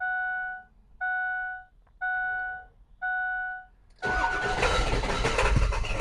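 Four evenly spaced electronic beeps about a second apart, then about four seconds in a 7.3 L Power Stroke V8 diesel engine starts suddenly and runs loud and uneven. This is the rough running the owner calls unhealthy, and it comes with injector drive module fault codes.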